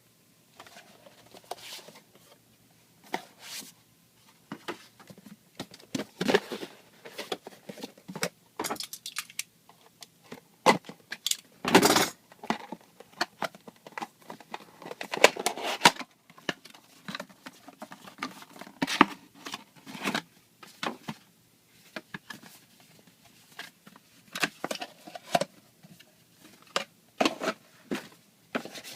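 Close handling noise of small parts and packaging: irregular clicks, rattles and short rustles, with a few louder crinkling bursts.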